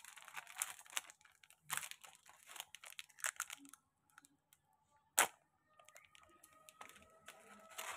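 Foil spice sachet being torn open and crinkled: a run of faint crackles over the first few seconds, then a single sharp click about five seconds in.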